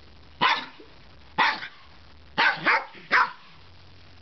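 Small dog barking in play: five short, sharp barks about a second apart, with two in quick succession midway, given from a front-down play bow.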